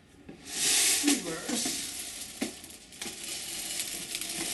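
Airsoft PKM's plastic box magazine scraping and rubbing against the gun's underside as it is worked into its mount, with two sharp clicks partway through.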